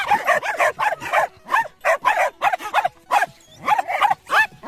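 Rapid, high-pitched dog barking: short yapping barks several a second, with brief pauses between bursts.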